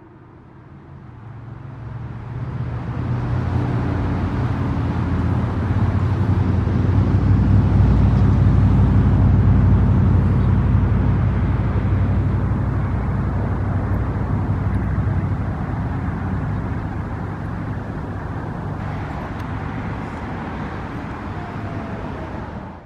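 Road traffic: a motor vehicle's engine and tyre noise swells to a peak about eight seconds in and then slowly fades as it passes. At the start, the last faint low tone of the siren winding down dies away.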